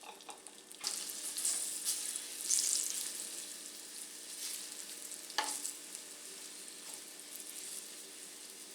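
Salted, cornstarch-coated pork pieces sizzling in hot oil in a skillet. The sizzle gets suddenly louder about a second in, and there is a single sharp knock about halfway through.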